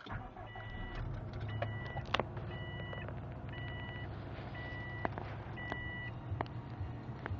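Subaru Impreza WRX's turbocharged flat-four engine catching at the start and running at a fast cold idle of about 2,000 rpm. Over it, a dashboard warning chime beeps six times, about once a second.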